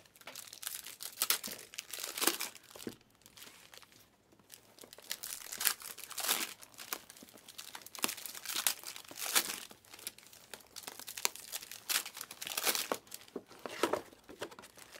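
Trading-card pack wrappers crinkling and tearing as Panini Prizm WNBA hobby packs are ripped open and handled, in irregular crackles with a quieter stretch about three to four seconds in.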